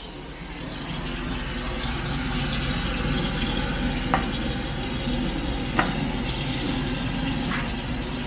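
Food frying in hot oil in a pan: a steady sizzle, with three short sharp clicks partway through.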